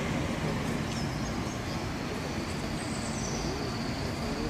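Steady hum of city traffic, an even rumble with no single vehicle standing out.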